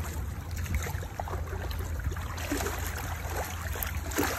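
Shallow water sloshing and splashing around a large sturgeon held at the water's edge, over a steady low rumble; the splashing gets busier in the last couple of seconds as the fish moves its tail.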